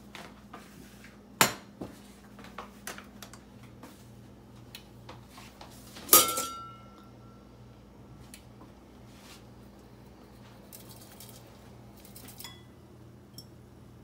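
Stainless steel pots, a lid and a ladle clanking and clinking on an electric stovetop. There is a sharp clank about a second and a half in and a loud ringing metal clang about six seconds in, with lighter clinks scattered between them.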